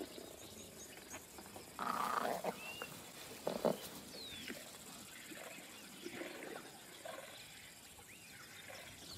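A big cat gives a short growl about two seconds in and another brief one about a second and a half later. Scattered bird chirps sound over quiet bush ambience.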